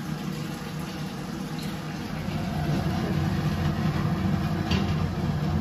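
Water running from a wall-mounted Aquaguard water purifier's tap into a steel vessel. Under it is a steady low motor hum that grows louder about two seconds in.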